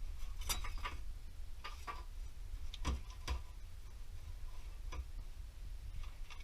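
Irregular light clicks and taps, about ten of them scattered unevenly, from small parts and hand tools being handled, over a steady low rumble.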